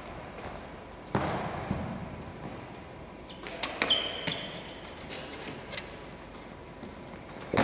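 Goalball ball thudding on a hardwood gym floor, one loud thud about a second in and another at the very end, each with a long echo of a large hall, and a few lighter knocks and a brief high ring around the middle.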